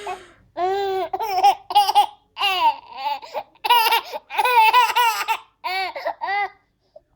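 A baby laughing in a string of short, high-pitched bursts, about ten of them, dying away near the end.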